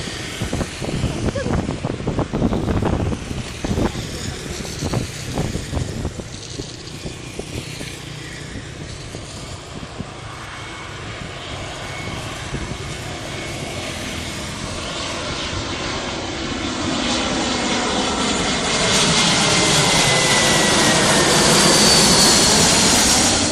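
Jet airliner on landing approach passing close overhead: its engines grow steadily louder from about halfway through, with a high whine over the jet noise, and are loudest near the end.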